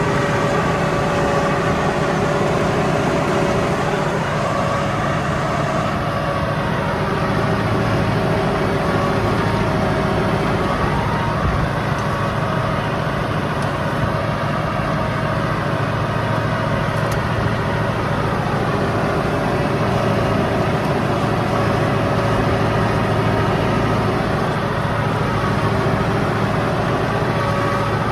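Landini 5-H 100 tractor engine running steadily under load while pulling a single-shank subsoiler through hard field soil.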